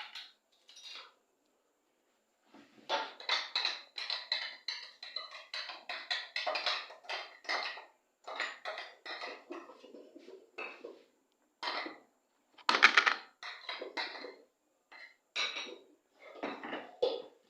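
Metal kitchen utensils and cookware clattering: a quick run of scrapes and knocks, with short pauses, as a spoon works against a pot or bowl.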